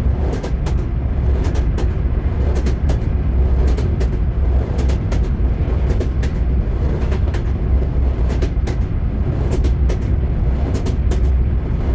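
Train wheels clattering over rail joints: a steady low rumble with sharp knocks in quick pairs and groups, repeating about once a second.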